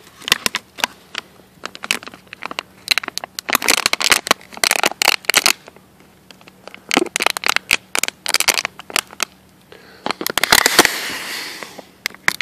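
Thin plastic water bottle crackling and crinkling as it is handled and squeezed, in bunches of sharp crackles with short pauses between.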